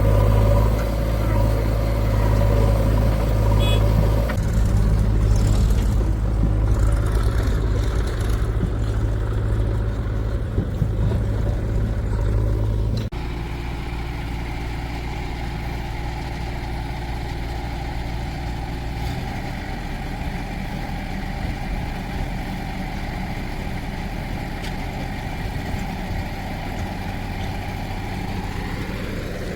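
Heavy diesel machinery engines running steadily: a loud, deep engine sound that stops at an abrupt cut about 13 seconds in, followed by a quieter, even engine sound.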